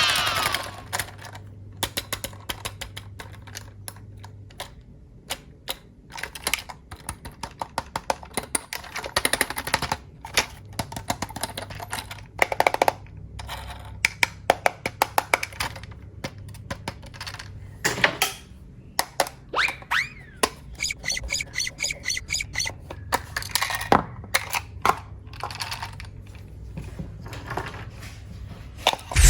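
Plastic toys and packaging being handled: irregular clicking and clattering throughout, with a few short squeaks partway through.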